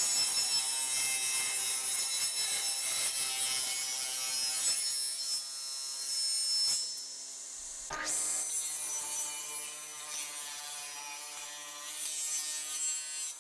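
Power saw running and cutting a wooden handle blank down to size, with a steady motor whine and wood-cutting hiss. It breaks off briefly about eight seconds in, then starts a second pass.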